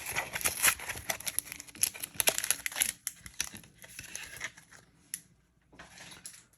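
Foil booster-pack wrappers crinkling and tearing as they are handled and opened, in quick sharp crackles that thin out after about three seconds and stop briefly near the end.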